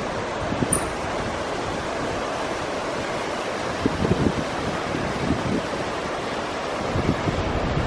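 Shallow mountain river rushing over rocks below, a steady rushing noise, with irregular gusts of wind buffeting the microphone several times.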